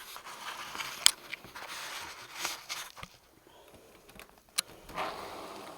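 Crunching and rustling handling noise with a few sharp clicks, someone heading outside and stepping into snow.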